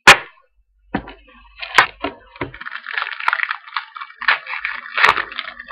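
A foil trading-card pack wrapper being torn open and crinkled by hand: a couple of sharp snaps in the first two seconds, then a few seconds of crackling with one louder snap near the end.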